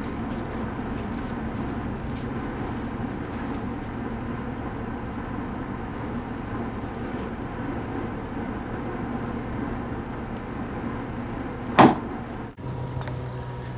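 A golf club strikes a ball off a concrete patio: one sharp, loud crack near the end, heard over a steady outdoor background hum and hiss.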